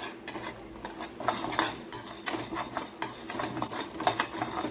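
Metal spoon scraping and clinking against a pan while stirring urad dal as it dry-roasts, in irregular strokes several times a second.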